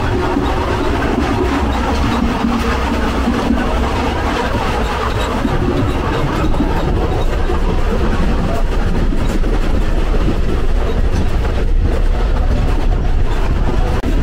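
Passenger train running along the track, heard from inside the carriage: a loud, steady running noise with a strong low rumble.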